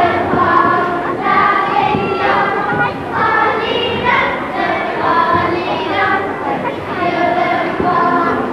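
A group of children singing a song together in unison, moving through a steady run of short held notes.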